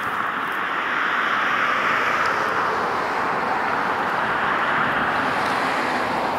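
Wind blowing outdoors, a steady rushing noise that swells and eases.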